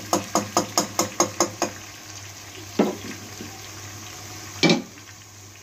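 Plastic spatula knocking and scraping against a non-stick kadhai while stirring sliced potatoes and tomatoes frying in oil. About eight quick strokes come in the first second and a half, then two single knocks, the last the loudest, over a faint sizzle.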